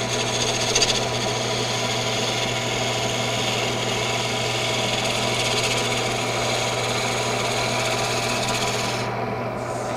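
Wood lathe running while a roughing gouge shears along a spinning wooden pepper-mill blank, a steady hissing cut over the motor hum. About nine seconds in the cutting noise drops away as the gouge comes off the wood, leaving the lathe humming.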